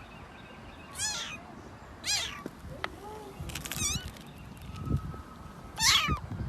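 A cat meowing, four short calls spread a second or two apart, the last one the loudest.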